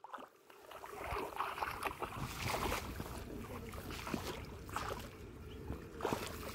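Shallow muddy water splashing and sloshing in flooded grass, a run of small irregular splashes over a steady rushing hiss.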